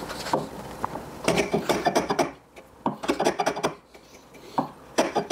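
Block plane taking quick, short strokes across the end of a wooden tenon: two clusters of rapid scraping strokes, each lasting about a second, then a few single strokes near the end.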